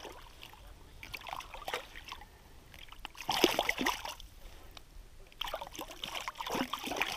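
Lake water splashing and sloshing in a few short, irregular spells as a released rainbow trout thrashes at the surface.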